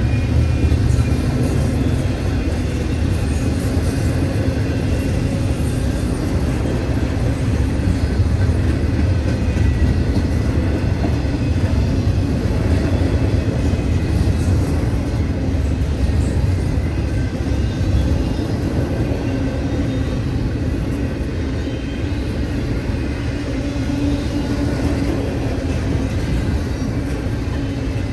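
Double-stack intermodal freight cars rolling past at a grade crossing: a steady rumble of steel wheels on the rails that holds at an even level throughout.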